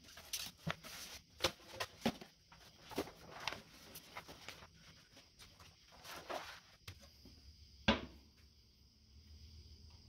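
Large rolled paper pattern rustling and crackling as it is unrolled and handled, in irregular bursts with one sharper crackle about eight seconds in.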